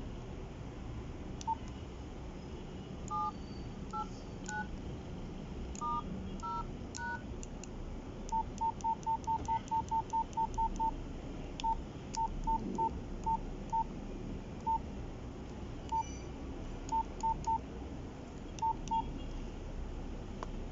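Nokia 3310 keypad beeps: a few two-tone dialing beeps as number keys are pressed, then a fast run of short single-pitched key beeps about five a second, then scattered single beeps, with faint clicks of the keys.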